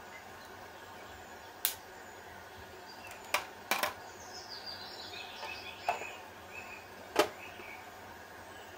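About five sharp, brief clicks scattered over a steady hiss, the last the loudest, with a faint run of high chirps falling in pitch in the middle.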